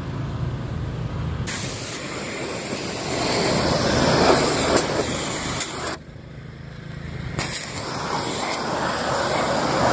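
Pressure-washer jet spraying water onto a car's paintwork and wheel, a steady hiss that starts about a second and a half in, stops briefly around six seconds, then resumes. A low steady hum comes before the spray starts.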